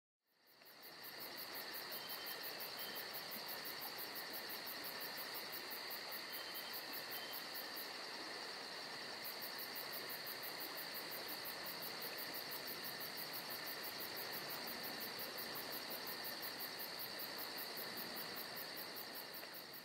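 Steady insect chorus, like crickets chirring at night, with a fast, even high pulsing over constant high tones. It fades in during the first second.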